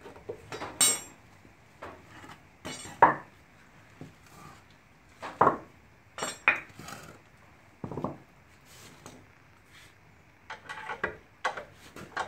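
Wooden blocks pulled from under a jacked-up car and set down on a concrete floor, with clinks of metal tools: irregular knocks and clatters, the loudest about three seconds in.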